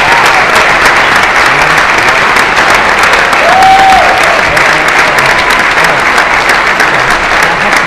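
Audience applause: dense, steady clapping, with a short held cheer from someone in the crowd about three and a half seconds in.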